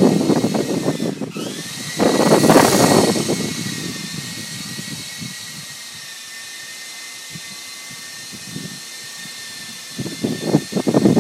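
Electric motors and rotors of a small coaxial RC helicopter (E-sky Lama) in flight: a steady high motor whine with a rough buzz. The whine dips briefly about a second in and comes back. The buzz is loud for a couple of seconds after that, quieter through the middle and loud again near the end.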